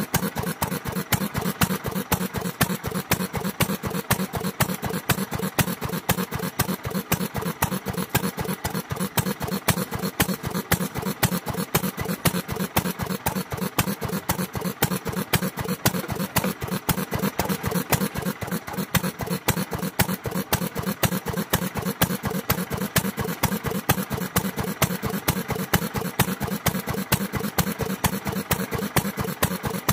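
Antique Sekiya Nouki 'Best' stationary oil engine (sekiyu hatsudoki) running at a steady, even beat.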